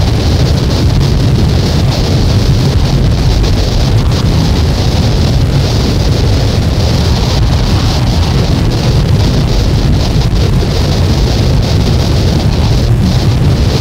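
Loud, dense noise music: a steady deep rumble with a hiss on top that swells and dips, with no clear melody or beat.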